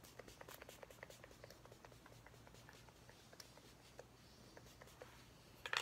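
Faint clicks and taps of a pump-spray bottle of face setting mist being sprayed and handled, with a few sharper clicks near the end.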